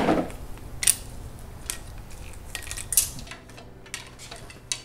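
Metal clinks and light knocks of a Toyota 1ZZ-FE's timing chain and chain guides being handled and lifted off the front of the engine, a scattering of separate sharp clinks.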